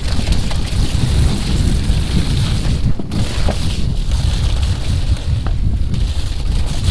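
Wind buffeting the microphone of a camera riding on a mountain bike during a fast snowy descent, a steady loud rush, with a few faint sharp knocks from the bike over rough ground.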